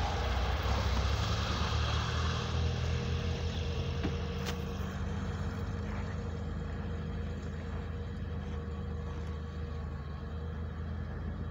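A UAZ van's engine running as it drives away, a steady low rumble that is loudest at first and slowly fades.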